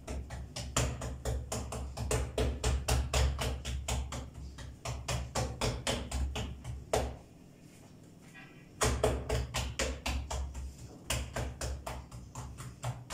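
Hands patting and slapping a ball of soft pizza dough flat on a countertop, a quick run of soft slaps about four a second, pausing for a second or so about seven seconds in.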